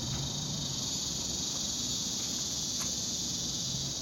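A steady, high-pitched chorus of insects, such as crickets or cicadas, with a faint low hum coming and going beneath it.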